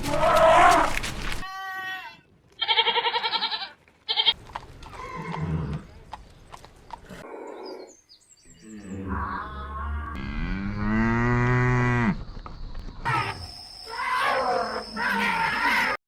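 Several different livestock calls cut one after another, among them a long, low cow moo near the middle.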